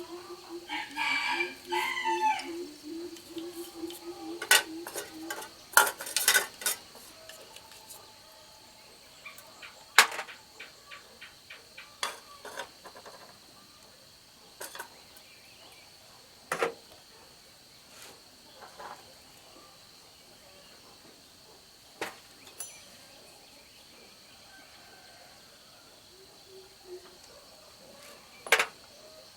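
A rooster crows once in the first few seconds. Then come sharp metallic clicks and knocks at uneven intervals, several close together around six seconds in and single ones after, like tools and small parts being handled.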